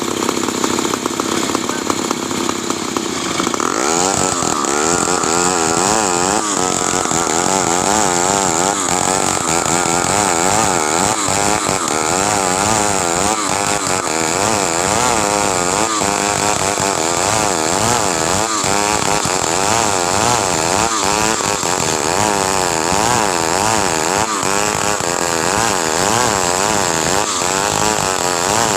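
Stihl two-stroke chainsaw running. About four seconds in it revs up to high speed and then runs on at full throttle, its pitch wavering up and down as it cuts through wood under load.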